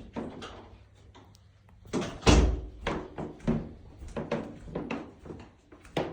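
Irregular knocks and thumps, the loudest a heavy thump about two seconds in.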